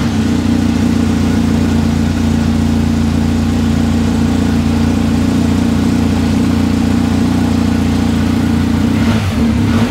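BMW R1250 GS HP edition's 1254 cc boxer-twin engine idling steadily.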